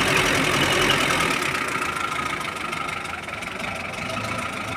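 UAZ-469's UMZ-417 four-cylinder petrol engine idling steadily, with a rumble that the mechanic puts down to the camshaft lobes, not a knock. It gets quieter about a second and a half in.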